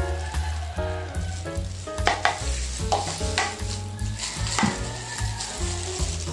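Background music: a melody of short, stepping notes over a repeating bass line, with a steady hiss beneath it and a few sharp hits about two, three and a half and four and a half seconds in.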